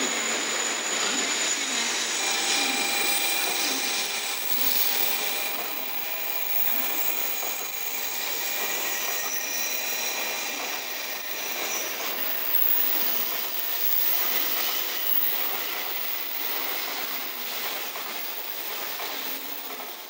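N700-series Shinkansen train pulling out and rolling past, a steady rush of wheel and running noise with several high, steady whining tones from the electric traction drive for about the first half. It grows quieter near the end as the last car goes by.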